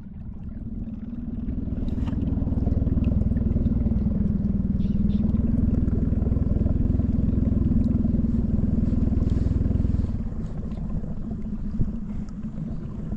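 Small outboard motor on a 12-foot dinghy running steadily as the boat motors through the water. Its note builds over the first two seconds and gets quieter about ten seconds in.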